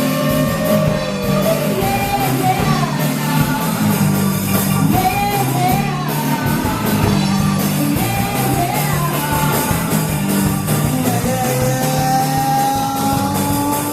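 Live rock band playing loud distorted guitars, bass and drums under a sung vocal line, with a long held note near the end.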